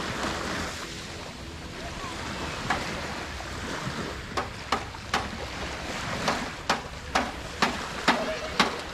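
Sea waves washing on the beach with wind, a steady rushing noise. From about three seconds in, a series of sharp knocks comes roughly every half second.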